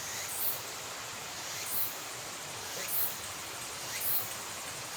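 An insect chirping in short, very high-pitched pulses, about one every 1.2 seconds, over a steady background hiss.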